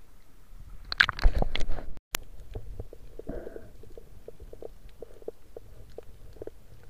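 Water splashing and sloshing against a waterproof camera at the sea surface, loudest about a second in. After an abrupt cut with a single sharp click, muffled underwater sound follows, with many small scattered clicks and pops.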